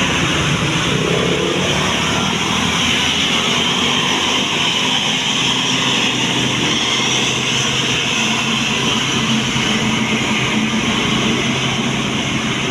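Large tour bus running steadily, a continuous engine rumble mixed with road noise and no distinct horn notes.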